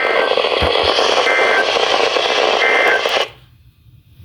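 Steady radio static hiss from the alert receiver, with three short faint beeps about a second and a half apart in it. The hiss cuts off abruptly a little over three seconds in.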